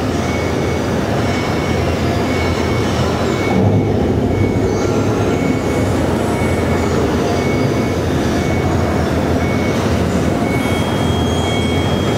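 A loud, steady rumble, like a train running, with a short high beep repeating at a regular pace through it. A higher steady tone joins near the end.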